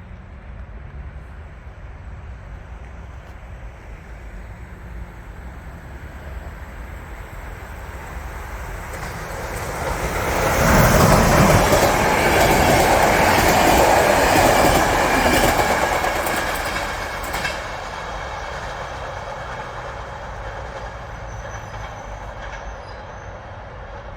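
Passenger train passing by. The rumble builds, is loudest for about five seconds in the middle with the wheels clattering, then fades away.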